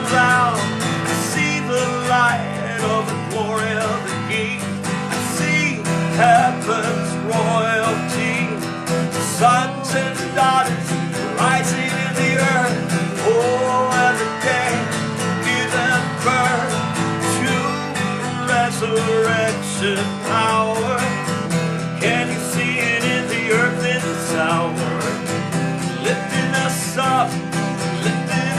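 Worship music played on guitar, with a melody line bending and gliding in pitch over steady sustained chords.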